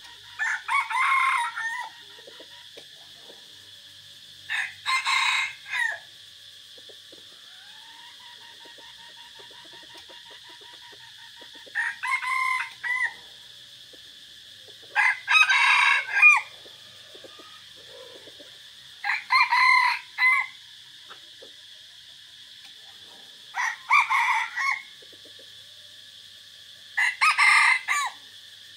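Caged decoy red junglefowl roosters crowing one after another: seven short crows a few seconds apart, over a steady high-pitched drone.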